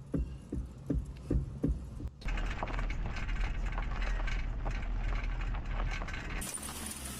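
Vehicle mechanical noises in short edited clips: first a rhythmic knocking, about two to three knocks a second over a low rumble; then, after an abrupt change, a steady clattering rattle over a strong low hum; then another abrupt change to a different steady running noise near the end.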